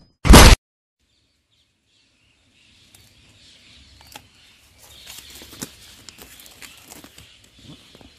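A very loud, short burst of noise from an intro sound effect, about a third of a second long, right at the start. Then silence, and from about three seconds in a faint outdoor background with scattered light clicks.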